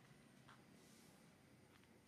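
Near silence: faint background hiss with two soft, short ticks.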